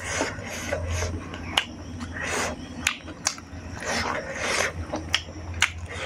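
Fingers mixing and gathering rice on a brass plate, rubbing and scraping against the metal in several short spells, with sharp wet clicks scattered between them.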